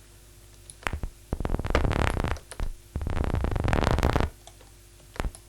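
Vital software synthesizer playing a synthesized paper-crumpling patch: dense, fast runs of clicks fired by two LFO-modulated arpeggiators, heard as two bursts of about a second and a half each, then a single click near the end. The clicks still fall at fairly regular intervals, so they partly blur into a tone-like buzz.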